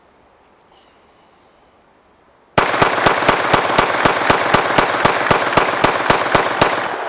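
Arsenal Firearms AF1 Strike One 9 mm pistol in rapid fire, about eighteen shots in four seconds starting between two and three seconds in: a full magazine plus one in the chamber, emptied as fast as possible. The shots echo and die away after the last one.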